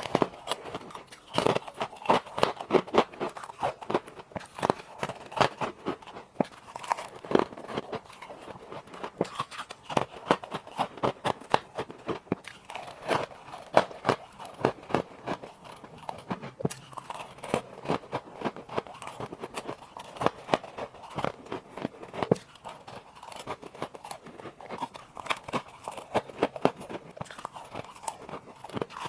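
Ice being bitten and chewed close to the microphone: a dense, continuous run of sharp, brittle crunches and cracks, sped up to double speed.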